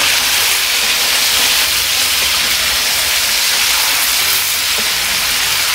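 Chicken pieces, tomatoes and green chillies frying in hot oil in a wok: a steady, loud sizzle as the pan's contents are stirred.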